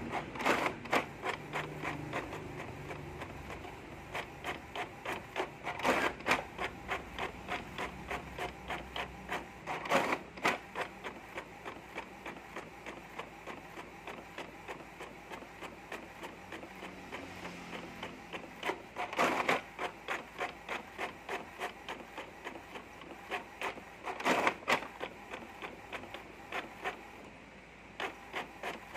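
Inkjet printer printing: the print-head carriage shuttles back and forth across the page in a quick, even rhythm, with a louder clatter every few seconds.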